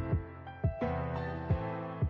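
Background music: sustained instrumental notes over a steady beat of deep thumps.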